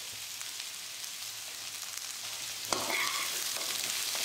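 Chickpea sundal sizzling softly in a kadai. About two-thirds of the way in, a perforated metal ladle clicks against the pan and starts stirring, scraping through the chickpeas and grated coconut.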